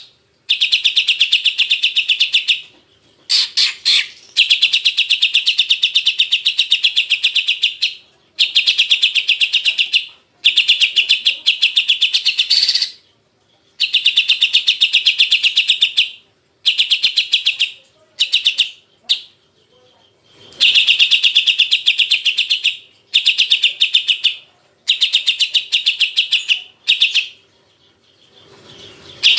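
Cucak ijo (green leafbird) song: rapid, harsh chattering trills in bursts of two to five seconds with short pauses between. This is a rough 'isian kasar' master call, meant to set other cucak ijo fired up.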